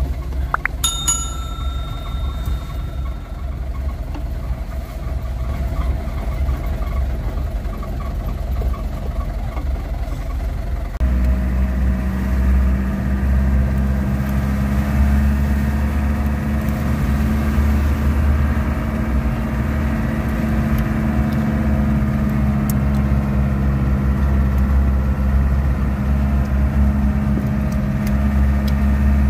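Engine of a heavily loaded truck running steadily on a steep downhill road. About eleven seconds in, the engine note steps up and grows louder, then holds there. A brief ringing tone sounds about a second in.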